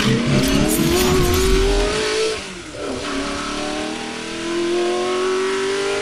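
Car engine accelerating hard through the gears: the pitch rises for about two seconds, drops at a gear change, then climbs again.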